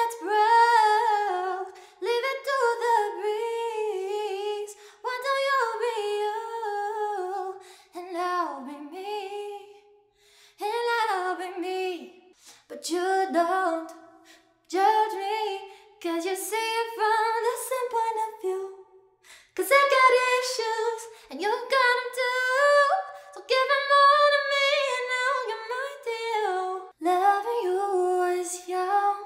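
A woman singing unaccompanied, with no auto-tune, moving through snatches of several pop songs in turn, in short phrases with brief pauses between them.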